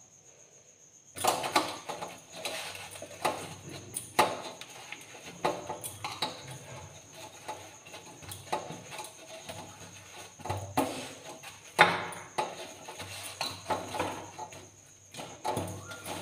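Scattered soft knocks and clicks of hands working dough and filling on a steel plate, starting about a second in.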